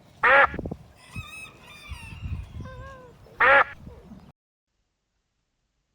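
Dog barking: two loud single barks about three seconds apart, with fainter high wavering sounds between them. The audio cuts off abruptly a little over four seconds in.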